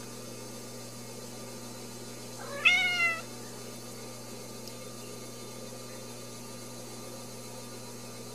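A young Ragdoll kitten gives one short, high mew about two and a half seconds in, its pitch rising quickly and then sliding down.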